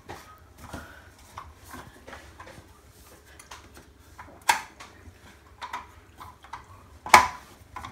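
Scattered light clicks and knocks of faux-wood and plastic blind parts being handled as a fascia board is pushed up and clipped onto a venetian blind's headrail, with two sharper knocks about four and a half and seven seconds in.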